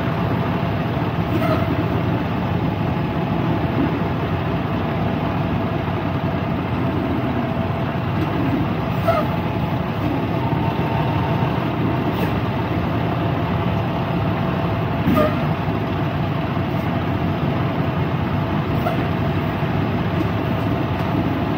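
Semi-truck diesel engine running steadily at low speed, with a few faint clicks now and then.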